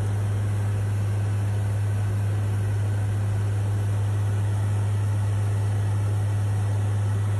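Steady drone of an aircraft heard from inside the cabin: a strong, constant low hum over an even rushing noise, with no change in pitch or level.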